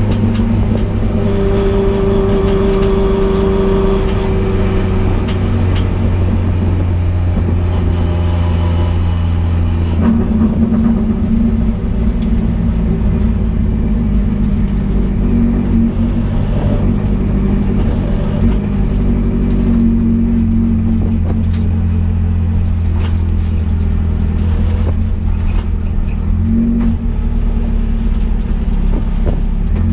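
Toyota AE86 Corolla GTS's 4A-GE twin-cam four-cylinder engine running loud and steady at speed. Its pitch steps about ten seconds in and again near the end.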